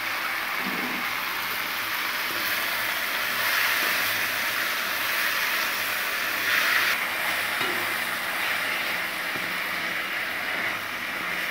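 Raw chicken pieces sizzling in hot oil with shallots, dried red chillies and garlic in a stainless-steel kadai. The sizzle is steady, with brief swells as a wooden spatula stirs and turns them.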